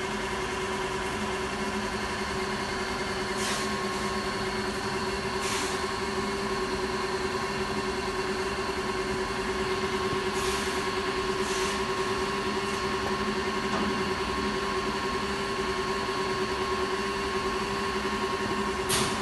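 A machine running with a steady hum. Several brief hisses come through it at irregular moments.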